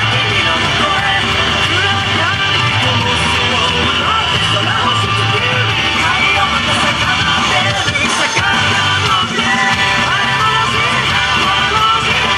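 Loud yosakoi dance music: a rock-style track with guitar and singing voices.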